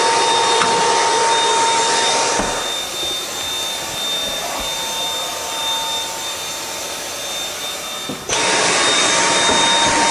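Steady whirring of a motor-driven fan or blower, with a constant high whine. It drops in level and changes character about two and a half seconds in, then jumps back up abruptly about eight seconds in.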